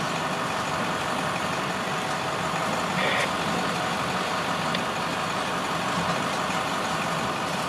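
Freight train of empty flatcars rolling past, a steady noise of wheels on rail, with a brief high squeal about three seconds in.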